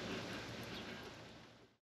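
Faint outdoor background noise fading out, then dead silence about three-quarters of the way in at an edit.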